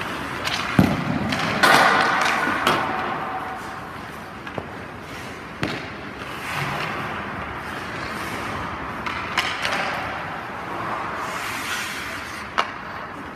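Hockey skates scraping and carving on rink ice during a goalie drill, with sharp knocks every few seconds, the loudest two in the first two seconds.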